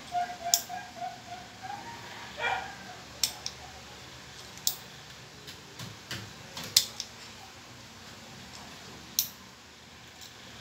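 Sharp metallic clicks from the spring-loaded mechanism of a homemade single-shot pen gun as it is cocked and worked by hand: about six separate clicks, spaced a second or more apart. A dog whines briefly in the first few seconds.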